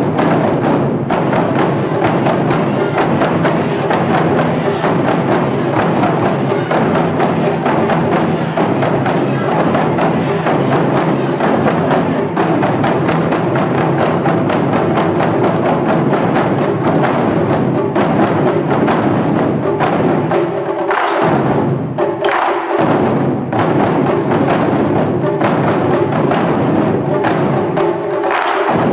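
Japanese taiko drums (wadaiko) played by an ensemble, dense rapid beating on drums of several sizes. The deep drums drop out briefly twice about two-thirds of the way through while the higher drums keep going.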